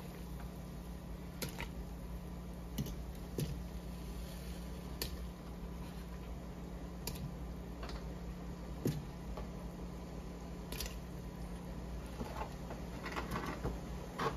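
Halved ears of corn on the cob dropped one at a time into a big pot of hot seafood-boil liquid, giving about a dozen short, scattered splashes over a steady low hum.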